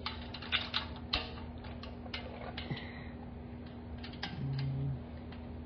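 Light metallic clicks and taps of exhaust fasteners being threaded by hand to hold a Sutton exhaust pipe temporarily in place. The clicks are thickest in the first second or so, then scattered. A faint steady hum runs underneath, and a brief low hum comes about four and a half seconds in.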